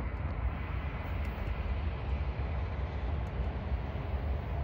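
Low, steady rumble of an approaching BNSF freight train's diesel locomotives, still far off.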